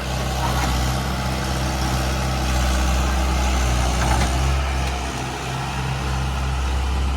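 Heavy diesel engine of farm or earth-moving machinery running steadily at low revs, close by.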